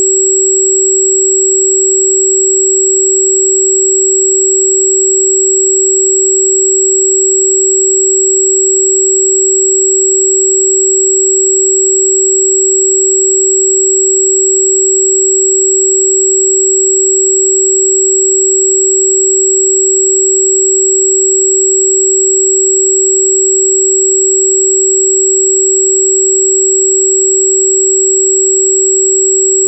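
A steady, unchanging pure sine tone at about 382.6 Hz: the frequency the video gives for Di Gu Pi (wolfberry root bark), played as an electronically generated 'healing frequency' tone.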